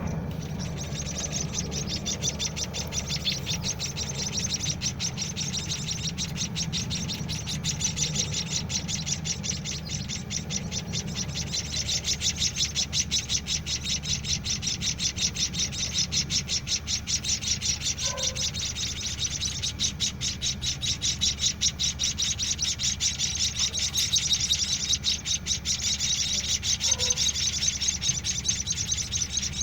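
Week-old white-headed munia (emprit kaji) chicks begging while being hand-fed: a continuous stream of rapid, high chirps, swelling and easing, over a low steady hum.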